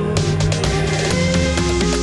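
Loud background music with a steady beat, drums and guitar-like notes.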